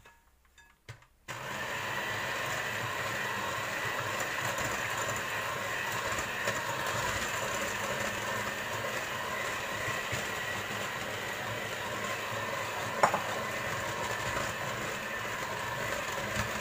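Electric hand mixer switching on about a second in and running steadily, its beaters churning flour into cake batter in a glass bowl. One sharp click late on.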